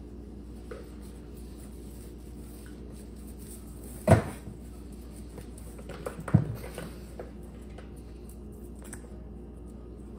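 Two loud thumps a little over two seconds apart, the second followed by a few smaller knocks and clicks, over a steady low hum.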